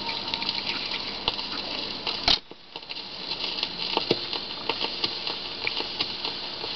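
Shellac record surface noise on a Dual 1002E record changer: steady hiss with scattered crackles and ticks as the stylus runs on past the end of the music, toward the label. A sharper click comes a little over two seconds in, and the hiss briefly drops before the crackle carries on.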